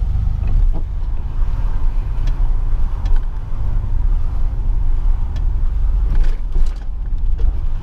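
Steady low rumble of a car being driven, heard from inside: road and engine noise of an Oldsmobile with a 3.8 L V6, with a few faint ticks.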